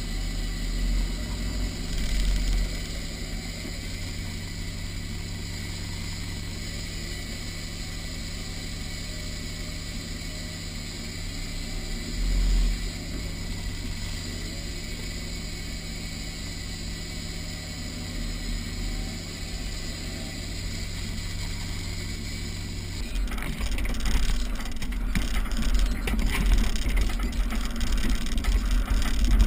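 Off-road 4x4's engine running steadily at low speed, heard from inside the cab. About two-thirds of the way through it grows louder and rougher, with irregular knocks and rattles from the vehicle lurching over the rough dirt trail.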